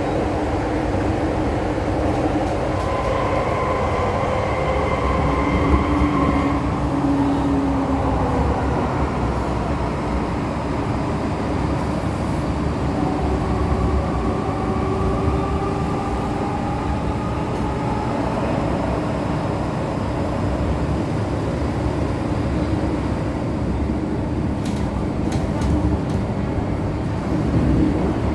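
MTR M-Train metro car running between stations, heard from inside the carriage: a steady rumble of wheels on the track, with a thin motor whine that comes and goes and changes pitch a few times.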